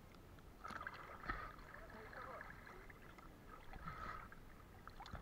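Faint sloshing and lapping of seawater, with soft crackling and a few small ticks.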